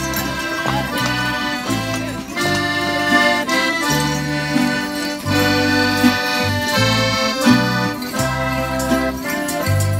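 Accordion playing a Mexican folk tune in held chords and melody, with acoustic guitars accompanying on strummed chords and bass notes.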